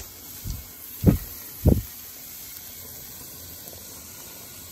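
Three dull knocks, about half a second apart, as chopped garlic, onion and bell peppers are tipped from a glass bowl into a stainless steel pan, with a faint steady hiss beneath.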